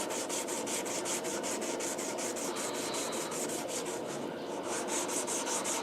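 220-grit sandpaper, wet with Windex and backed by a wooden stir stick, rubbed quickly back and forth by hand along a forged leaf-spring steel knife blade, about five strokes a second, with a brief pause about four seconds in.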